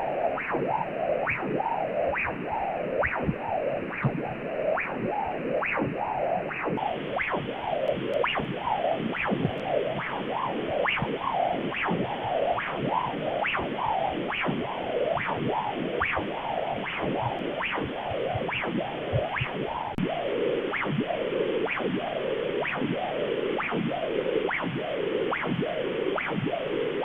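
Amplified blood-flow audio: a rhythmic whooshing pulse at a little over one beat a second, each beat a sharp attack followed by a falling whoosh. It is the flow while the Treadwell System is in use, when the flow velocity is raised.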